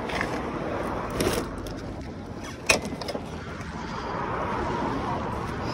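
Steady road traffic noise, with a single sharp knock about two and a half seconds in.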